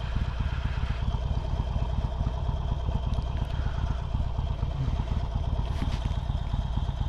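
Harley-Davidson Sportster's V-twin engine running steadily at idle, with no revving.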